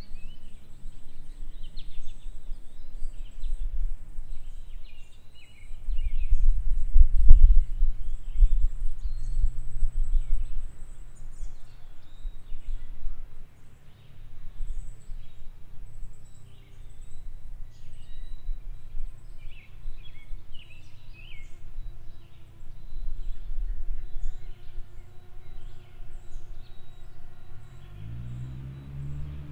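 Small birds chirping in short, repeated calls over a low rumble that swells about six to ten seconds in. A faint steady hum comes in during the second half, and a deeper pitched sound rises near the end.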